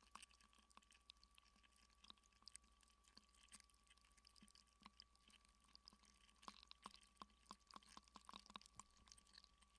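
Near silence: faint, irregular clicks and crackles over a steady low hum, the clicks coming more often in the last few seconds.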